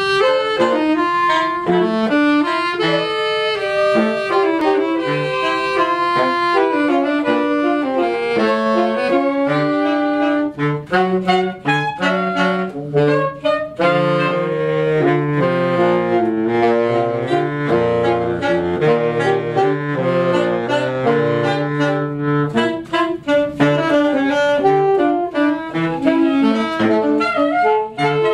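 A saxophone ensemble, soprano saxophone on top, playing a tune in several parts with held notes. The soprano saxophone is out of tune with the others, a borrowed school instrument that would not tune, giving a sour, clashing sound.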